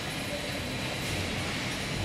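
Steady running noise of an automatic sheet-metal shearing and stacking line: an even rumble and hiss with a faint, steady high whine, and no distinct blade strikes.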